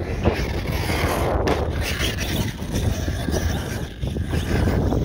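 Arrma Outcast RC truck driving across grass, its Surpass Hobby 4076 2000 Kv brushless motor running on a 6S battery, with wind buffeting the microphone.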